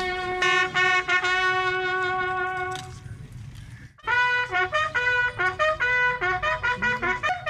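A single brass horn playing a bugle call for a salute: a long held note that cuts off about three seconds in, then after a second's pause a quick run of short notes at changing pitches.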